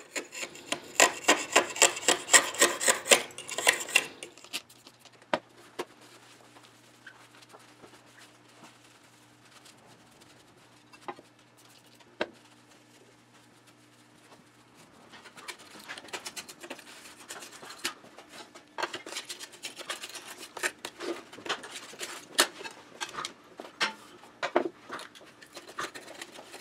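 A hand scraper rasping old glazing putty off a pane of window glass in quick strokes. It goes quiet for a stretch, with only a faint low hum and a few light taps, then resumes with lighter, more irregular scraping.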